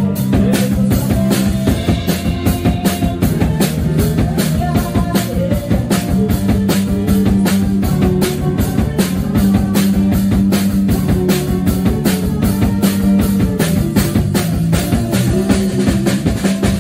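Live band playing: a steady drum-kit beat with guitars and a man singing at an upright piano.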